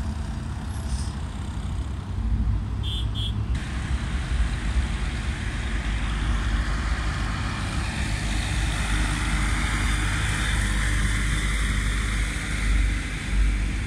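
Road vehicle driving along, recorded on board: a steady low engine and road rumble with a wind and tyre hiss that grows louder from about four seconds in. Two short high beeps sound about three seconds in.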